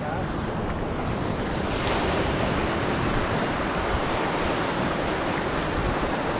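Shallow surf washing over the beach, with wind buffeting the microphone; the wash grows louder about two seconds in.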